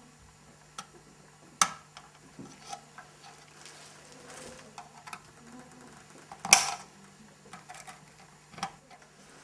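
Needle-nose pliers clicking and tapping against the small metal fittings on a model locomotive's roof as a tiny pipe piece is pressed into its connector. It is a scatter of sharp clicks, the loudest about one and a half seconds in and again about six and a half seconds in.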